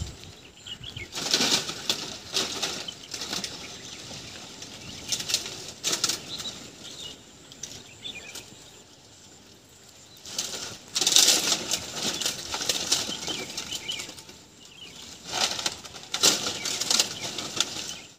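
Dry palmyra palm fronds rustling in bursts of a second or two as a climber moves about in the crown of the tree.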